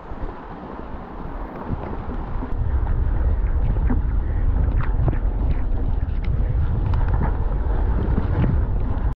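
Wind buffeting the microphone of a camera on a mountain bike in motion, mixed with the tyres and bike rattling over a wet dirt trail in many small clicks and knocks. The low wind rumble comes up sharply about two and a half seconds in and stays heavy.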